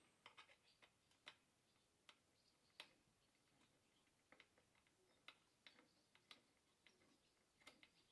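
Faint, irregular small clicks and taps of a screwdriver turning the screws of a Stihl MS 462 chainsaw's bumper spike, near silence in between.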